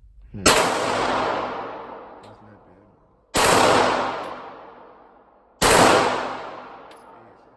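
Three single gunshots about two and a half seconds apart, each ringing out and fading over about two seconds.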